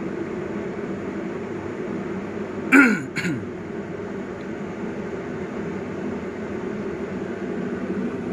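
A man clears his throat in two quick, loud bursts that fall in pitch, about three seconds in, over a steady low hum.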